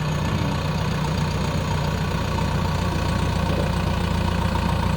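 JCB backhoe loader's diesel engine running steadily with an even low hum.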